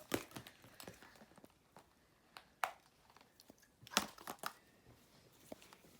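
Small fidget toys handled and set down: scattered light clicks and rustles, the sharpest about two and a half seconds in and again at about four seconds.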